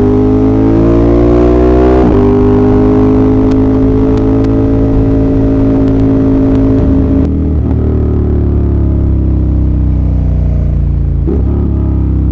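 Ducati Monster 1200S's V-twin engine under way. It accelerates and shifts up a gear about two seconds in, then the engine pitch climbs steadily. Around seven seconds in the throttle closes and the pitch falls slowly as the bike slows, with another brief break near the end.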